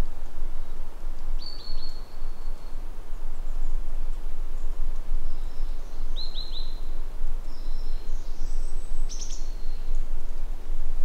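Small birds calling: short high chirps in quick runs of three, about a second and a half in and again around six seconds, then more high calls near nine seconds and at the very end, over a steady rushing noise.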